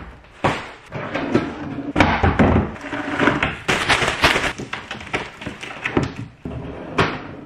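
Plastic trash bag rustling and crinkling as a full bag is lifted out of a kitchen trash can and a fresh liner is shaken open and fitted into it, with a few knocks from the plastic bins.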